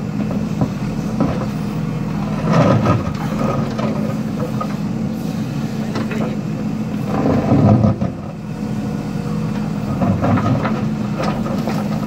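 JCB 3DX backhoe loader's diesel engine running steadily, getting louder three times, about two and a half, seven and ten seconds in, as the backhoe arm digs. Knocks and scraping of the bucket in earth and broken brick come with the surges.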